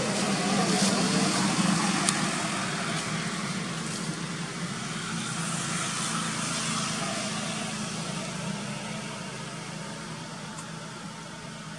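A steady low engine hum with a broad rushing noise, loudest in the first couple of seconds and slowly fading: a motor vehicle running at a distance.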